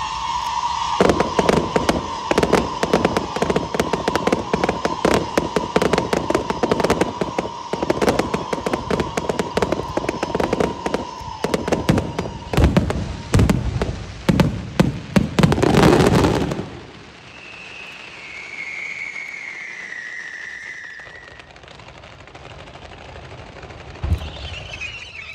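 Aerial fireworks barrage: a dense, rapid string of bangs and crackles for about fifteen seconds, with a steady high tone under most of it, stopping abruptly. Then it goes quieter, with a brief falling tone and a single thump near the end.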